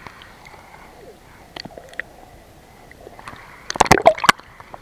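Shallow seawater sloshing and lapping, with a short burst of loud splashes and knocks about four seconds in.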